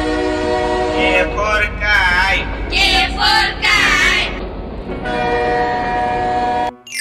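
Cartoon train horn sound effect: a steady, held horn chord. It gives way after about a second to a high, wavering voice, then sounds again and cuts off suddenly near the end.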